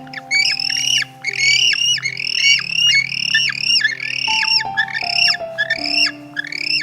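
A bird giving a rapid series of short harsh calls, each rising then falling in pitch, about two or three a second, over background music with held notes.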